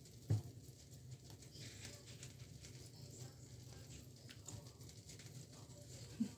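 Silicone spatula stirring a thin glutinous rice batter in a glass bowl, with faint repeated ticks and scrapes against the glass. A single low thump about a third of a second in.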